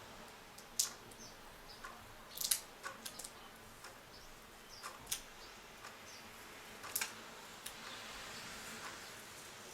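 Small, sharp clicks and taps, about half a dozen spread a second or two apart, from hands peeling the tape off a laptop LCD panel's display cable and unplugging the cable's connector.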